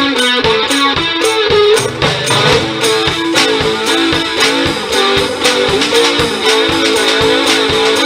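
Live band music: an electric guitar plays a melodic riff over a drum kit keeping a steady beat.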